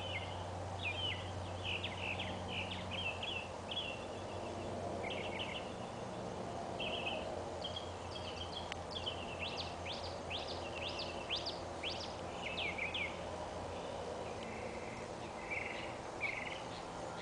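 Birds chirping and singing outdoors: a continuous run of short high notes, with a stretch of quick downward-sweeping calls in the middle, over a steady low hum.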